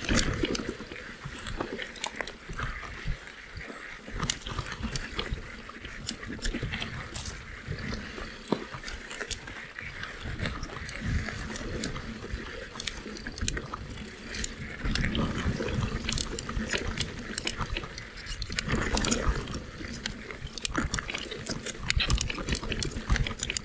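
Mountain bike riding down a rough dirt trail: tyres rolling over stones and roots, with frequent sharp clatters and knocks from the bike over a steady low rumble.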